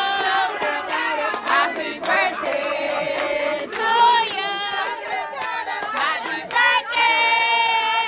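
A party crowd singing and shouting together in many overlapping voices, with sharp claps or beats mixed in and a long held shout near the end.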